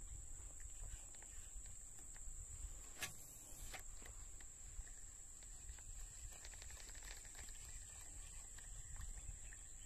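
Faint outdoor ambience: a steady high-pitched drone over a low rumble, with two light clicks about three seconds in.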